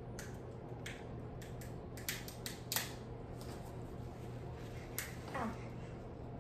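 Scattered sharp clicks and cracks of crab-leg shells being broken and picked apart, with a short falling squeak about five seconds in. A low steady hum runs underneath.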